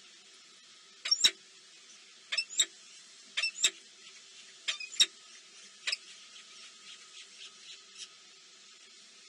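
Small bird chirping: short, sharp, high chirps, mostly in pairs, coming about once a second, then fainter ones over a faint steady hiss.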